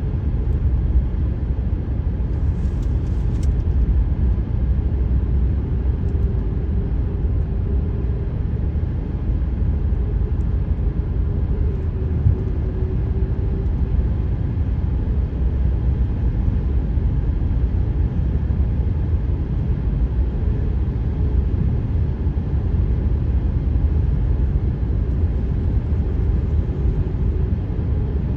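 Car tyres on freshly laid asphalt: a steady low road rumble, with a faint moaning tone that fades in and out for several seconds at a time. This is the 'ghost noise' of new pavement that, in the uploader's words, takes longer to settle in cold temperatures.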